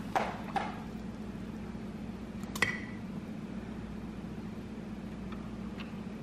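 Granulated sugar poured into a glass measuring cup of hot water, then a metal spoon stirring it, with one sharp clink about two and a half seconds in and a few light taps near the end. A steady low hum runs underneath.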